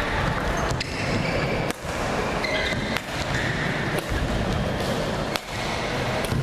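Badminton rally: racket strings striking the shuttlecock as the players trade shots, six sharp hits roughly one every second, over a steady background hum of the hall.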